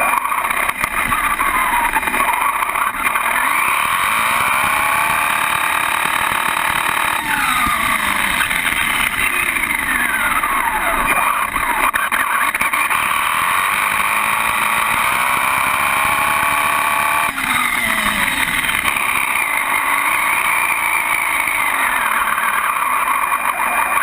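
Associated RC10 radio-controlled car's motor and drivetrain whining up and down in pitch as it speeds up and slows down, heard loud and close over steady running noise.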